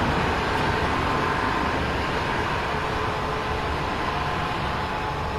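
A State Railway of Thailand diesel railcar running as it moves slowly along a station track: a steady engine hum with faint steady tones, slowly getting quieter.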